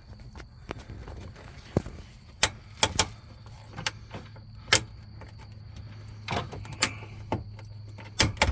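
Sharp metallic clicks and knocks, about ten of them at uneven intervals, from a hand tool working a tight spring hose clamp. A steady low hum runs underneath.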